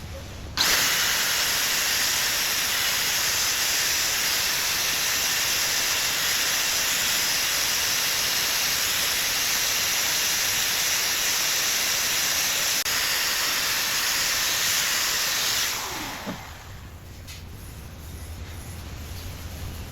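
TIG welding arc on stainless steel, a steady hiss. It starts suddenly under a second in, holds even for about fifteen seconds, then tapers off over about a second.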